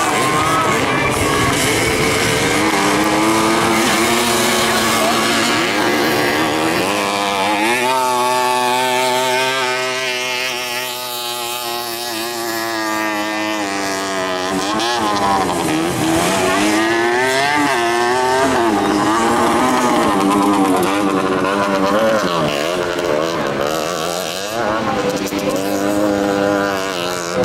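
50cc two-stroke moped and motocross engines revving, their pitch repeatedly rising and falling as the bikes race and climb.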